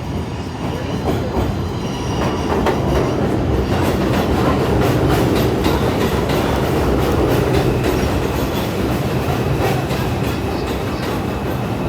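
New York City subway train running on the tracks, heard from inside the car: it grows louder over the first few seconds as it picks up speed, then runs steadily, with the wheels clacking over rail joints.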